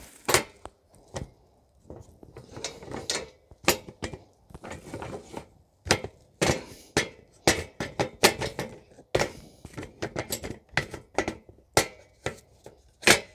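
Irregular wooden knocks and clunks as the top boards of a Black & Decker Workmate folding bench are shifted apart and a handheld belt sander is knocked against them. Dozens of separate sharp knocks of varying loudness, with no motor running.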